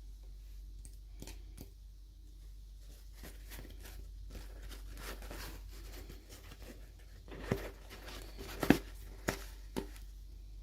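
Hands opening doll packaging: rustling and tearing of wrapping, then several sharp clicks and taps of small plastic parts in the second half.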